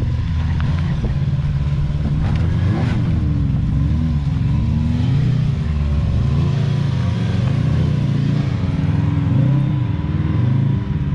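Can-Am Maverick X3 side-by-side's engine revving up and down again and again as it crawls up a rocky hill climb.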